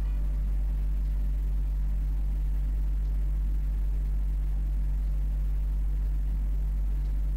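Steady low hum, unchanging throughout, with no music or voices over it.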